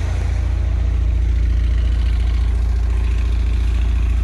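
A 1991 Honda Prelude's four-cylinder engine idling steadily, with a deep, even pulsing; the owner thinks it is misfiring.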